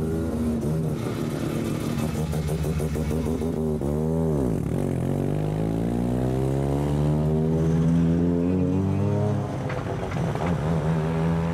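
Car engines and exhausts as cars drive out past one after another. About four seconds in, one engine's note dips sharply and comes back. It then climbs steadily for several seconds as the car accelerates, and falls away near the end.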